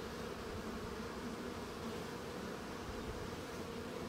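Steady buzzing hum of a mass of honeybees crowded on the outside of a hive.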